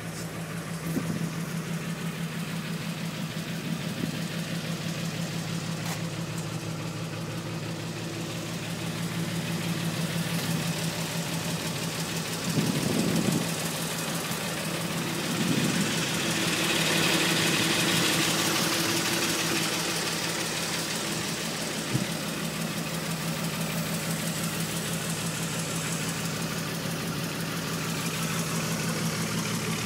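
Engine of a 1941 fire engine idling with a steady low hum. A louder rush of noise swells and fades a little past the middle.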